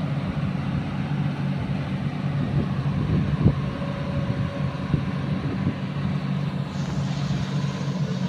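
Heavy-equipment diesel engine running steadily under a low hum, with a short knock about three and a half seconds in.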